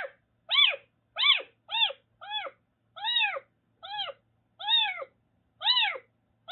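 Siamese-mix kitten meowing over and over, about nine short calls in quick succession, each rising and then falling in pitch.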